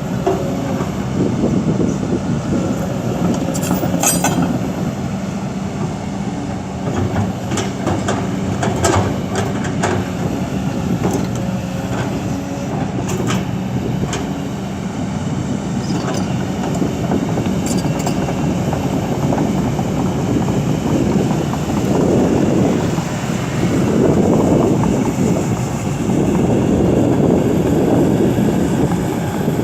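Kobelco SK200 hydraulic excavator at work: its diesel engine running steadily, with repeated sharp clanks and knocks through the first half, and the engine swelling louder in surges from about two-thirds of the way in, as under heavier load.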